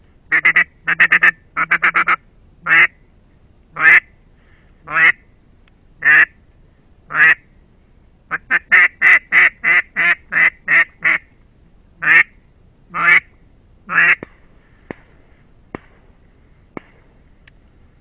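Double-reed ebony duck call (Russian Custom Calls) blown in a quacking sequence. Short clusters of quick quacks give way to single quacks about a second apart, then a fast run of about a dozen quacks and three more single ones. A few faint clicks come near the end.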